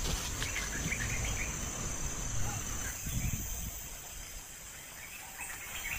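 Insects trilling steadily at a high pitch, with soft rustling from movement through undergrowth.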